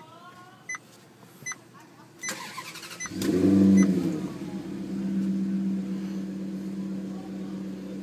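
Maserati GranTurismo V8 being started: a short dashboard tone repeats about every three-quarters of a second, then the starter cranks briefly past the two-second mark and the engine catches with a loud flare of revs near four seconds before settling into a steady fast idle.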